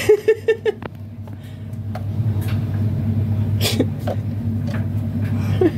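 Animated skull Halloween decoration: the last few short pitched "ha" notes of its laugh, then a steady low hum with a few faint clicks as it is handled.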